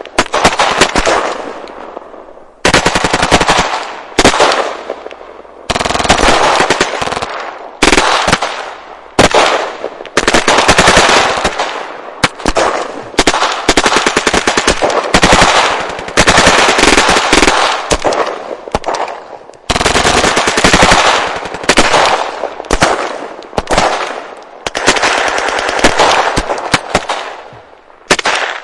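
Machine gun firing in repeated bursts of rapid shots, each burst lasting a second or two, with short gaps in which the echo dies away.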